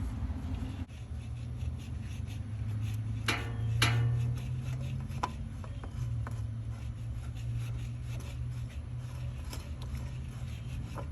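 Light rubbing and clicking of hands handling a new spin-on oil filter as it is fitted, with a couple of short squeaks about three to four seconds in, over a steady low hum.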